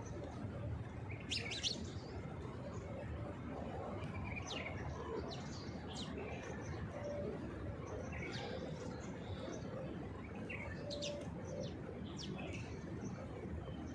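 Small birds chirping in short, sharp calls every second or two over a steady low background noise, with pigeons giving a few low coos in the second half.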